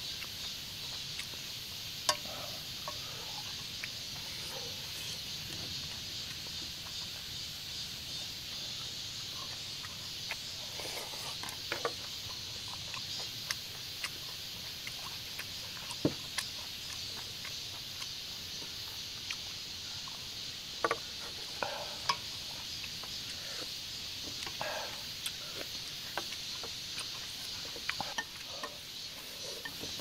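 Scattered eating sounds, chewing and slurping noodles with sharp clicks of utensils against dishes, over a steady high chirring of insects.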